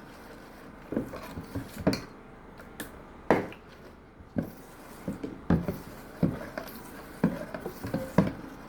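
A spoon knocking and scraping against a mixing bowl while stirring okpa (bambara nut flour) batter, with sharp knocks about once a second.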